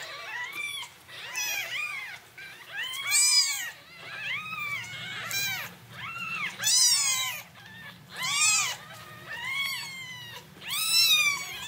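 A litter of week-old newborn kittens mewing over and over, several high cries overlapping, each rising and falling in pitch. They are hungry kittens waiting to be bottle-fed, their mother having no milk.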